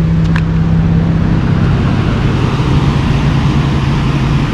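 Lexus GS300's 2JZ straight-six engine running steadily with a low, even drone that drops slightly in pitch about a second in.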